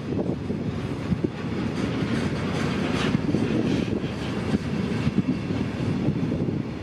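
Train running on the rails, a steady rumble with clickety-clack of the wheels, with wind buffeting the microphone.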